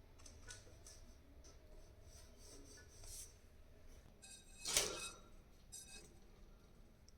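Faint, scratchy budgerigar chatter in short bits, with one louder, harsh call a little under five seconds in.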